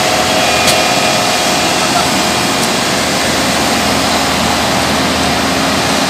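Diesel engine of an asphalt paver running steadily at road works, a loud even mechanical noise, with a sharp click under a second in.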